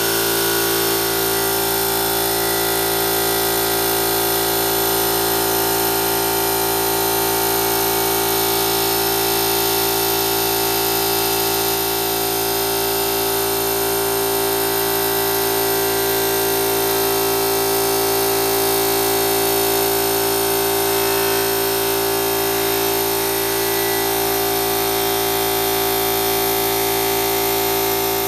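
Harbor Freight 20-gallon, 135 PSI oil-lubricated piston air compressor running steadily under load, its pump crankcase freshly filled with AMSOIL synthetic compressor oil.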